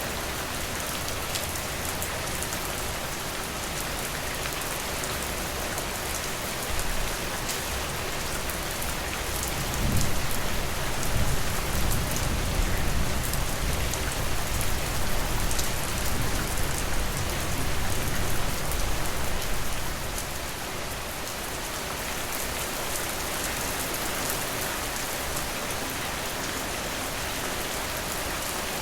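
Steady rain falling. About ten seconds in, a low rumble of thunder starts suddenly, rolls for about ten seconds and dies away, with a brief low thump a few seconds before it.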